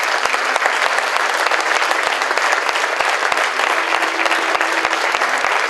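A large audience applauding steadily, dense clapping throughout.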